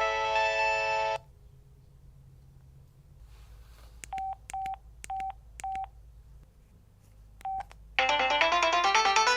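Samsung SPH-N345 mobile phone: a polyphonic ringtone stops about a second in, then the keypad gives short clicking beeps, four in quick succession and a fifth a little later, as the menu is stepped to the next ringtone. Near the end the next polyphonic ringtone starts loudly, with quick runs of rising notes.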